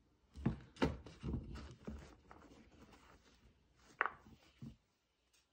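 A pair of sneakers being handled and set down on their cardboard box: a few soft knocks and rustles, the sharpest about four seconds in.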